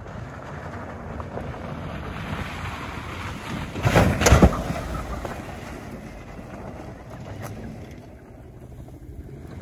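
Wind rushing over the microphone above a low rumble, with a loud gust about four seconds in.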